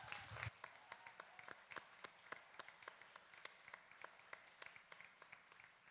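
Faint, scattered hand clapping from a small congregation: a quick, uneven run of sharp claps that fades out at the end.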